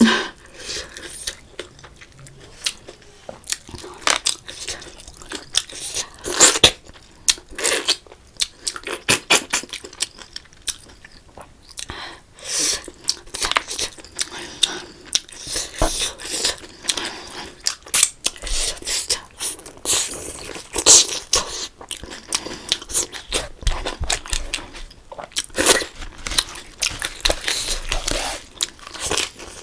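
Close-miked eating: irregular crunching, biting and chewing of food.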